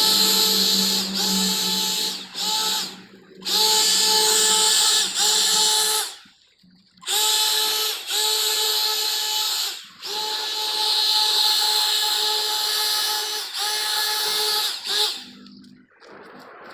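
Leaf blower running with a steady whine and rush of air, cut off and restarted several times, with two pauses of about a second.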